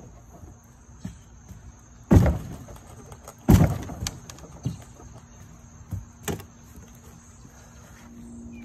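Work boots stomping on the floor of a gutted fiberglass boat hull: two heavy, booming thuds about two and three and a half seconds in, then a few lighter knocks.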